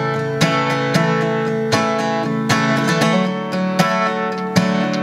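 Acoustic guitar strumming chords in a steady rhythm, playing the instrumental lead-in to a worship song.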